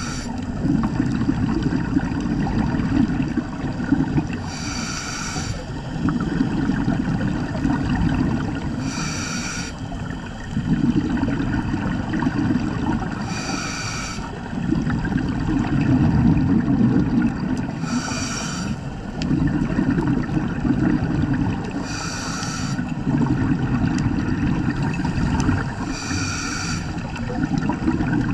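Scuba diver breathing through a regulator underwater. Each breath opens with a short hiss from the demand valve on the inhale, then a longer low rumble of exhaled bubbles, about every four seconds with seven breaths in all.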